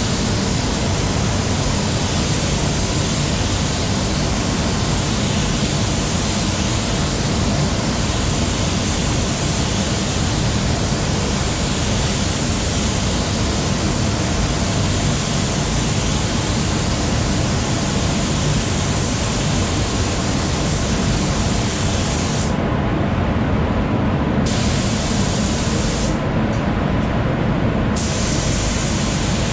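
Spray-booth paint spraying: the air-driven spray gun hisses steadily over the low hum of the booth's extraction fans, with the gun's hiss stopping briefly twice near the end as the trigger is released.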